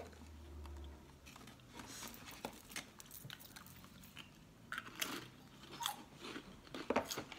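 A Pringles potato crisp being bitten and chewed: faint, irregular crunches.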